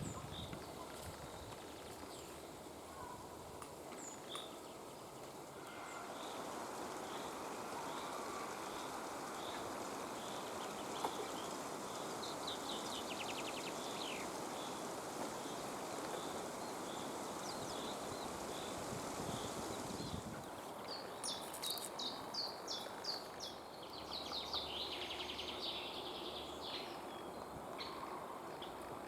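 A run of songbird calls over steady background rush. First common blackbird calls, then common starling calls with rattling notes in the middle, then another short blackbird bit. Near the end comes common chaffinch song, its quick trilled phrases coming several times.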